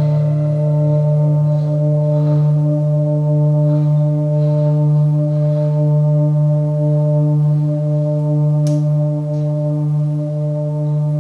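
Yamaha DX7 FM synthesizer playing an ambient pad: one sustained chord held throughout, a strong low note under steady higher tones that pulse slowly.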